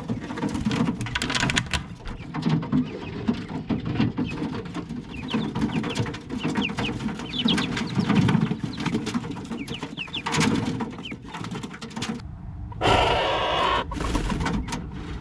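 Coturnix quail in a wire-floored hutch: short rising chirps and calls, with clicks and scratches of feet on the wire mesh, from a male in a mating frenzy just after the hens were put in with him. Near the end there is a burst of rapid wing flapping.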